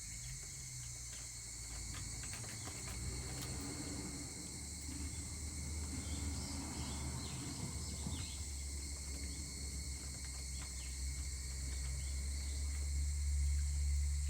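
A steady chorus of insects, with scattered sharp crackles from a wood fire and a low rumble underneath that swells near the end.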